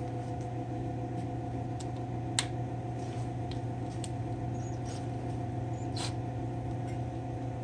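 A steady mechanical hum from a machine running in the workshop, with a few light, sharp clicks of tools being handled on the chainsaw, the clearest about two and a half seconds in and another about six seconds in.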